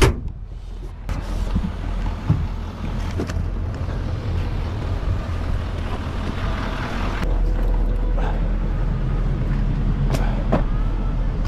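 Steady low rumble of a pickup truck engine running, with wind noise on the microphone and a few scattered knocks and clicks, one of them about ten seconds in.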